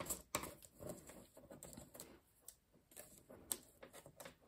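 Light, irregular taps and clicks with faint scraping as a small paper envelope is pressed and its folds creased with a pointed folding tool on a plastic scoring board.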